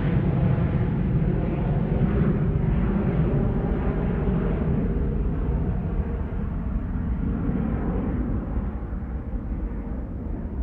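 Jet airplane engine noise, a deep rumble that slowly fades and grows duller as the jet moves away.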